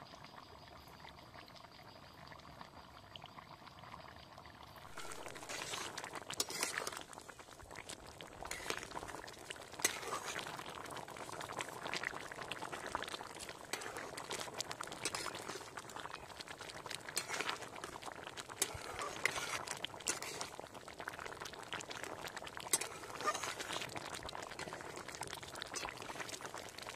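Thick curry bubbling at a rolling boil in a metal pan over a wood fire, a dense popping and burbling. It is fainter for the first five seconds or so, then close and steady.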